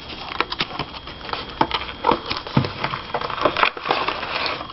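Retail packaging of a phone-style case being opened by hand: a run of small crackles, clicks and rustles as the plastic and cardboard are worked apart carefully.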